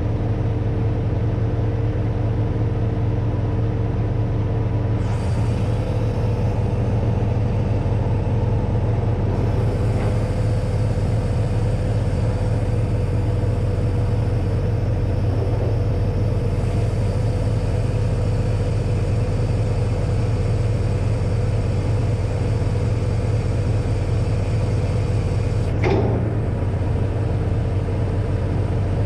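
Crane truck's diesel engine running steadily to drive the crane hydraulics, with a steady whine over its drone. One short knock near the end.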